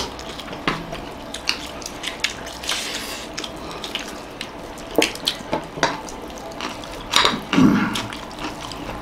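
Eating sounds at a table: wet chewing and mouth smacks with scattered clicks of a metal spoon and fork against a plate, busiest about seven seconds in.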